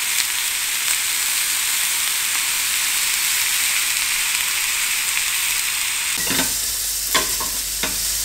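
T-bone steak, rubbed with olive oil, sizzling steadily in a hot ridged grill pan as its second side sears. In the last couple of seconds a few sharp knocks come as metal tongs catch the pan while lifting the steak out.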